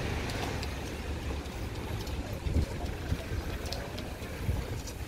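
Outdoor street ambience recorded while walking: a steady, fluttering low rumble of wind on the microphone and distant traffic, with a few faint ticks of footsteps on the pavement.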